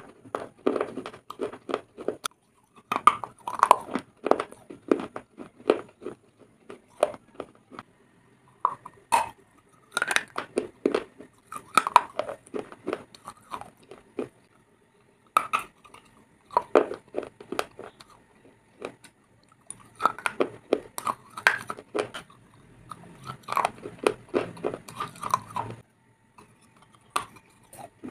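A person biting and chewing hard, dry chunks of edible earth (baked clay or shale) close to a clip-on microphone: runs of sharp crunches, with short pauses between bites.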